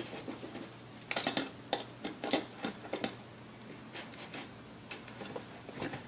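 Irregular light metal clicks and taps of hand tools working on the metal parts of a vintage Hamilton Beach Model D mixer during disassembly, as a stubborn part is worked loose.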